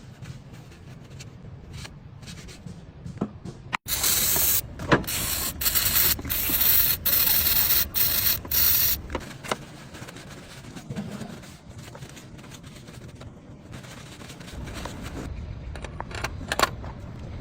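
Loud hissing of a pressurised spray, let off in a series of bursts from about four seconds in until about nine seconds, over a low steady rumble.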